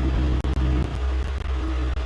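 Hyundai 85A excavator's diesel engine running steadily, a continuous low rumble.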